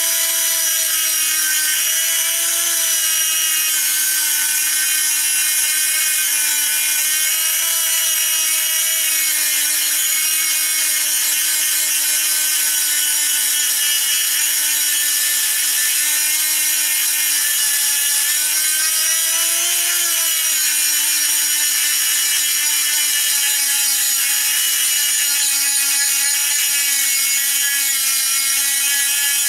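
Hand-held rotary tool with a small grinding stone grinding a steel knife blade: a steady motor whine whose pitch wavers slightly as the stone is worked against the metal, over a grinding hiss.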